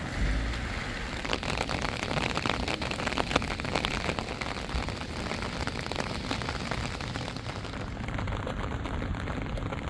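Rain falling steadily, a dense spread of small sharp drop ticks over an even hiss, with a low thump right at the start.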